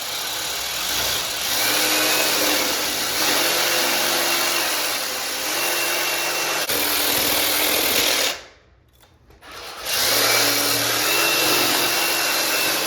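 Handheld electric power tool running hard in two long bursts, about eight seconds and then about three, with a short stop between.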